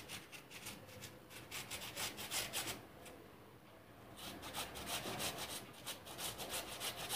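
Peeled mango ginger rubbed on a flat stainless-steel hand grater: soft, rapid scraping strokes, about five a second, with a pause of about a second and a half near the middle.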